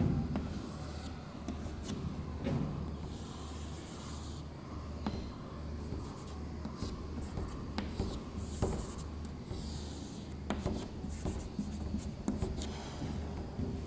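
Chalk being drawn across a chalkboard: a series of scratchy strokes and light taps as curved lines are drawn, over a low steady hum.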